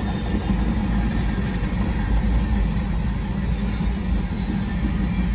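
Empty covered hopper cars of a freight train rolling past in a steady rumble and rattle of steel wheels on rail, with a faint high squeal from the wheels.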